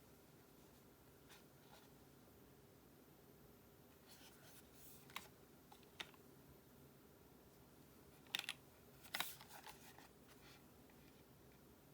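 A few scattered keystrokes on an acrylic-cased Tofu60 keyboard with lubed Gazzew Boba U4T tactile switches and Akko ASA keycaps, faint and spaced out with pauses, the loudest cluster coming about eight to ten seconds in.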